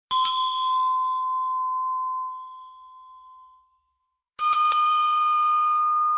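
Boxing ring bell struck and ringing out, fading over about three seconds. After a short gap a slightly higher-pitched bell is struck three times in quick succession and keeps ringing.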